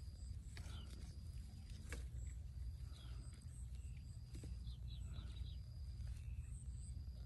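Outdoor lakeside ambience: short bird chirps and a faint steady high insect-like tone over a low rumble, with a few faint sharp clicks.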